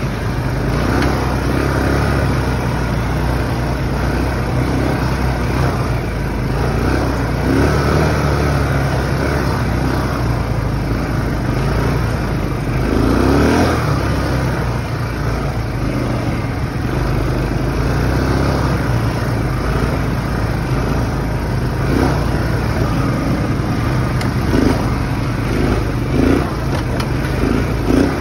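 Automatic ATV engine running steadily while riding over a dirt track, a continuous low drone, with a few short louder bumps near the end.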